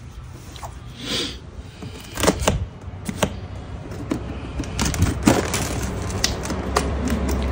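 Shears cutting plastic packing straps and tape on a cardboard box, with the box and loose straps being handled: irregular sharp clicks, snips and knocks, the loudest a little over two seconds in, and a short scrape about a second in.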